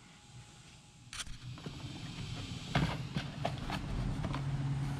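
Handling noise: a click about a second in, then rustling and a few light knocks as a small cardboard box is picked up and turned in the hand, over a steady low hum.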